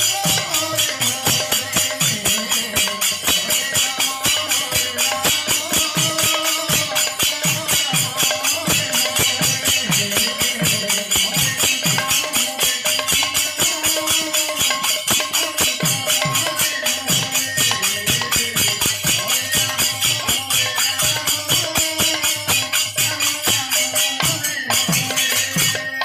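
Kirtan percussion: a khol barrel drum beats bass strokes that slide down in pitch, under hand cymbals clashing in a fast, steady rhythm.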